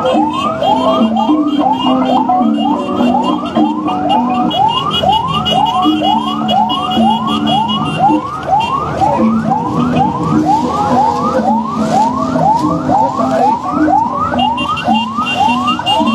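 Electronic siren in a fast yelp: the pitch sweeps up and snaps back about three times a second, without a break.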